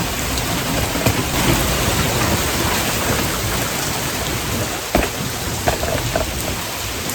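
Heavy rain falling steadily, with a few sharper drop impacts standing out about a second in and again around five seconds in.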